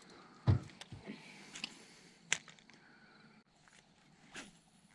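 Scattered knocks and clicks of fishing gear being handled in a small jon boat, with a dull thump about half a second in and a sharp click near the middle.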